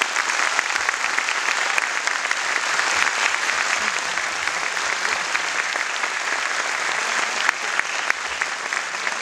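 Audience applauding, many people clapping at once in a dense clatter.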